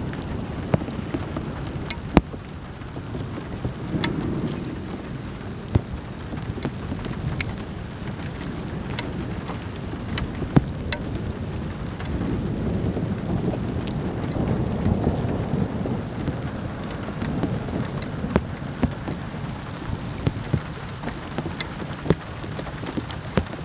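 Rain falling through a thunderstorm, with scattered sharp drops striking close to the microphone. Low thunder rumbles in slow swells, loudest about halfway through.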